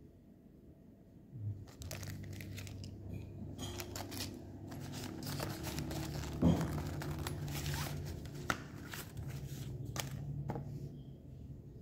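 Plastic bag and paper leaflets crinkling and rustling as they are handled and pulled from the mesh pocket of a zippered case, with a sharp knock about halfway. A steady low hum comes in about a second and a half in and carries on underneath.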